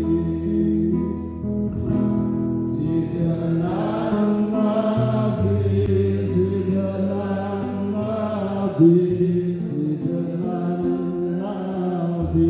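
Devotional chanting sung in long held notes over musical accompaniment with a sustained low drone.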